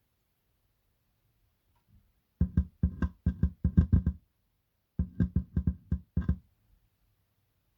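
Subwoofer speaker driver thumping as 9-volt batteries are tapped on and off its terminals: two bursts of quick thumps, about four a second, with a short pause between.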